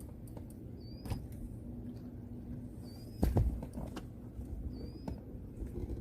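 A bird's short high chirp repeating about every two seconds, three times, over a few light knocks, with a dull thump about three seconds in as the loudest sound.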